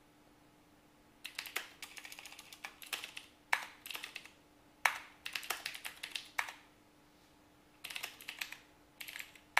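Typing on a computer keyboard: quick runs of keystrokes in bursts, starting about a second in, with a short pause about two-thirds of the way through before another run.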